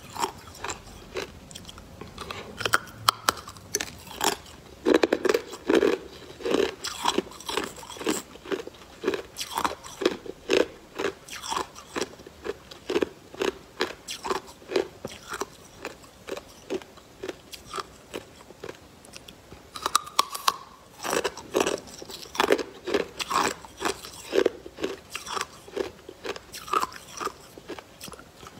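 Clear ice pop crunched and chewed close to the mouth: quick runs of sharp, crisp cracks as the ice breaks between the teeth, with a short lull past the middle.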